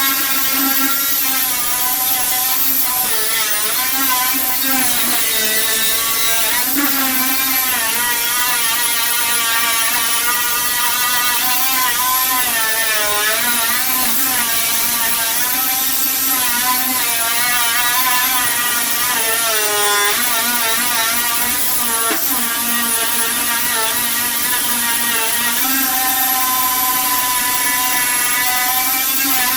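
A power tool running continuously with a whine, its pitch sagging and recovering every few seconds as it is pressed into the work and eased off, typical of paint stripping with a spinning tool.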